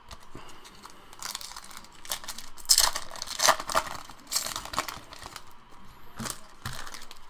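Wrapper of a Topps trading card pack being torn open and crinkled, with irregular rustling and a few louder crackles in the middle.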